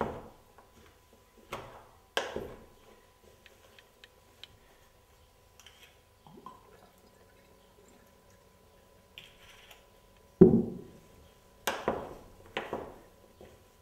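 Mixing soaked bread and chopped vegetables in a plastic bowl with a wooden spoon: soft wet squishing with scattered knocks of utensils and bottles, the loudest knock about ten seconds in and a few more near the end.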